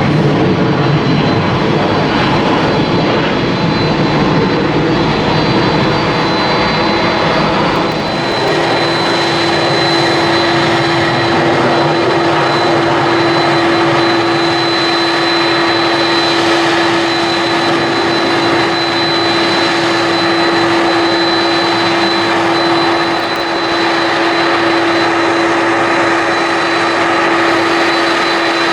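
Jet airliner engines running loudly and steadily. A deep rumble dominates at first and eases after about eight seconds, when a steady high whine comes in and holds.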